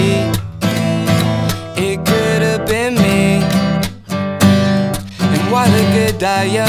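Country-style music with strummed acoustic guitar and a gliding melodic lead, in a passage between sung verses of the song.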